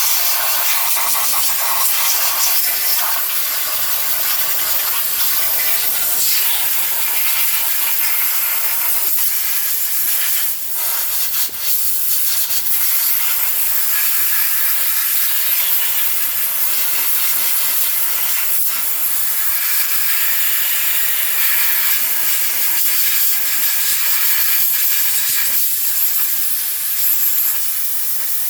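High-pressure spray hissing steadily as it blasts grime off engine parts, briefly interrupted about ten seconds in.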